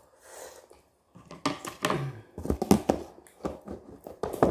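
Close-up eating sounds of a chewy rice-cake stick (garae-tteok) being bitten and chewed: a quick irregular run of wet clicks and smacks, starting about a second in.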